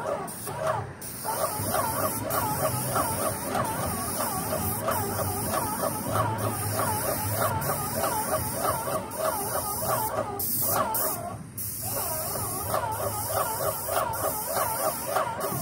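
Paint spray gun on a hose hissing steadily as it coats a metal tile roof, with a fast repeating chirping sound beneath the hiss. The spray cuts out briefly about a second in and twice more around ten to twelve seconds.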